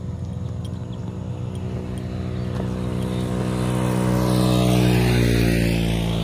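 A motorcycle riding past: its engine gets louder, is loudest about five seconds in, and drops in pitch as it goes by.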